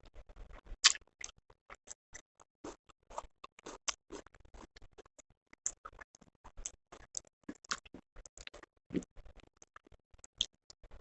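Close-miked chewing and mouth sounds of a person eating: many short, irregular clicks and smacks, the loudest about a second in.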